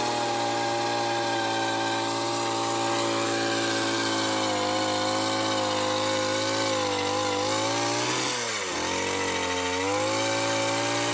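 Handheld earth auger's small engine running steadily at high speed, its pitch dipping briefly about eight seconds in and then coming back up.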